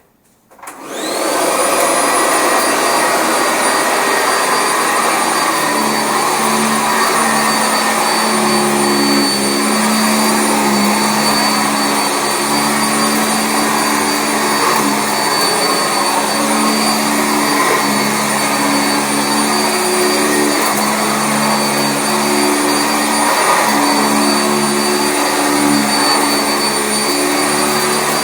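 Sanitaire SC679J commercial upright vacuum switching on, its motor whining up to speed within about a second, then running steadily while vacuuming carpet. A lower hum comes and goes from about six seconds in.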